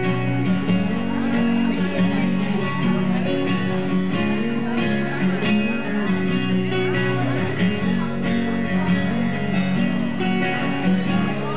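Acoustic guitar strummed in chords at an even level, played live.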